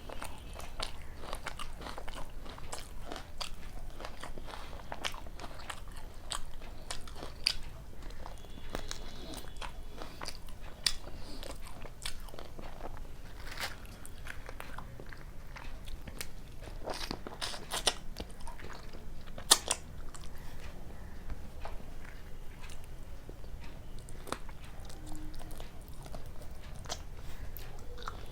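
Close-up mouth sounds of someone eating luchi with chicken kosha and raw onion: steady chewing and biting, broken by sharp crunches.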